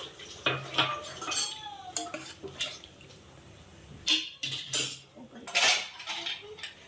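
Kitchen dishes and cutlery clattering and clinking in irregular knocks, loudest a little past the middle.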